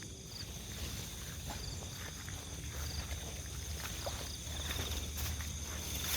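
Crickets and other night insects chirping steadily, with short trills over the continuous high tones. A low rumble runs underneath, with a few light rustles and clicks.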